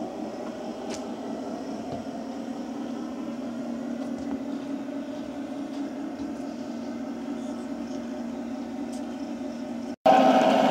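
G-scale model trains running on garden-railway track: a steady hum of motors and wheels. About ten seconds in it breaks off briefly and comes back louder, as locomotives run past close by.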